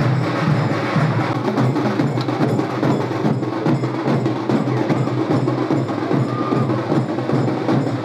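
Percussion-led music with a fast, steady beat of sharp strokes.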